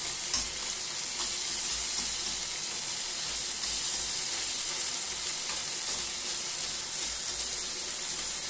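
Beef frying in a hot pan with stir-fry sauce: a steady sizzle, with a faint click or two near the start.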